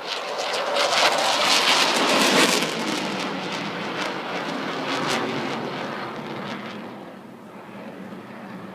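RAF Eurofighter Typhoon jet flying past, its twin jet engines loudest about one to two and a half seconds in, then fading slowly as it moves away.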